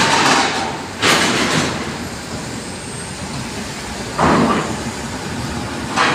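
Small diesel trucks (Colt Diesel type) rolling off a roll-on/roll-off ferry over its steel ramp and linkspan, over a steady vehicle and harbour noise. Four sudden loud noisy bursts, each fading over about half a second, stand out.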